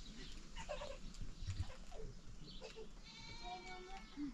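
A goat gives a single high, wavering bleat lasting about a second, about three seconds in. Faint scattered clicks and chirps come before it.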